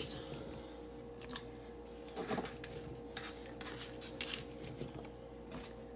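Cut raw potato chunks being scooped by hand off a cutting board and dropped into a slow cooker: faint, scattered taps and rustles, the loudest a little over two seconds in.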